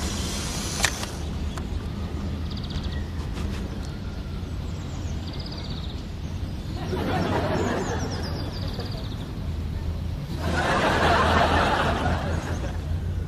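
Birds chirping now and then over a low steady hum, with a single sharp click about a second in. Two stretches of breathy hiss rise in the middle and near the end, the second the loudest.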